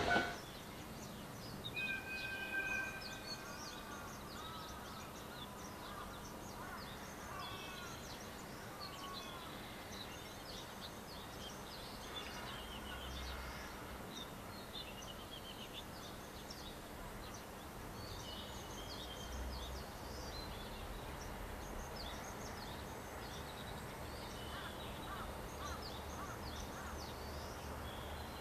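Birds chirping and calling, many short calls one after another, over a faint steady low hum. A brief whistled call comes about two seconds in.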